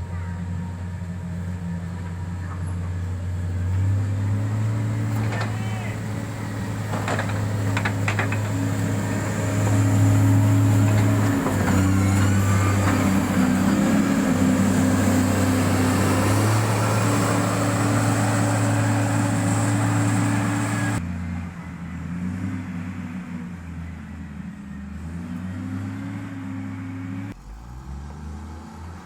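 Diesel engine of heavy road-construction equipment running steadily, picking up revs about four seconds in and again near the middle. The engine sound shifts abruptly about two-thirds of the way through.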